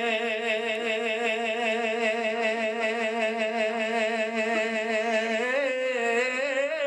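A man's voice holding one long sung note with a slight waver, then rising in pitch about five and a half seconds in, in a devotional chant.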